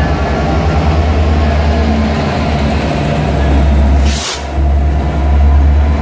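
Diesel railway locomotives passing close by, a loud steady low engine rumble with the rolling noise of the train, and a short sharp hiss about four seconds in.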